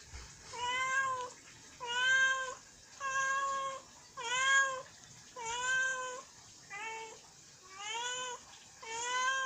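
A domestic cat meowing over and over, eight drawn-out meows about a second apart, one of them shorter near the end, begging its owner for food.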